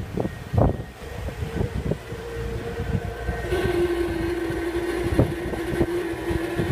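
Outdoor condensing unit of a refrigerator running with a steady hum and irregular sharp knocks: the strange noise the unit is making. About halfway through, the hum drops in pitch and grows stronger.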